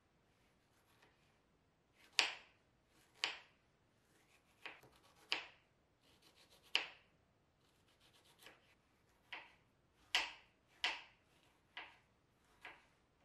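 Paring knife slicing fresh strawberries on a cutting board: about eleven sharp taps, roughly one a second, as the blade goes through the berry and meets the board, with faint scraping of the knife between them.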